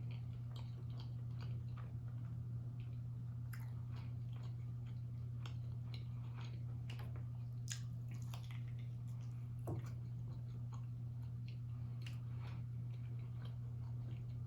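Close-miked chewing of food, with scattered wet mouth clicks and crackles, over a steady low hum.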